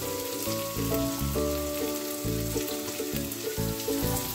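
Background music, a tune of short notes over a bass line, with the crackling hiss of chopped onions sizzling in hot oil in a frying pan underneath.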